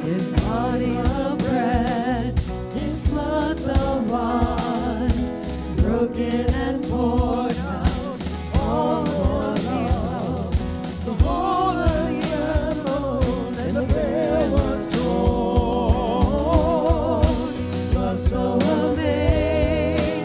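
Contemporary worship band playing a song: held, wavering sung notes over guitar and drums.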